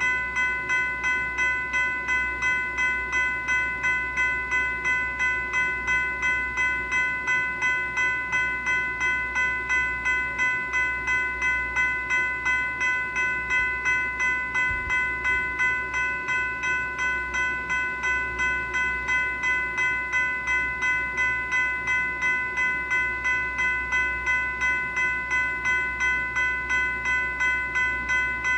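General Signals Type 3 E-Bell, an electronic bell, sounding continuously: a steady, rapid run of struck-bell tones, a little over two strokes a second, each ringing briefly and decaying. A low hum runs underneath.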